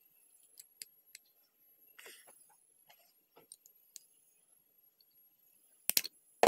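Plastic and metal Beyblade Zero-G spinning-top parts being handled and fitted together: faint scattered clicks and a short rustle, then a couple of sharp clicks about six seconds in as the parts are pressed together. A loud noisy burst starts right at the end.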